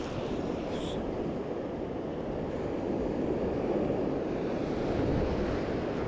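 Steady wind buffeting the microphone over surf washing on the beach, growing a little louder midway.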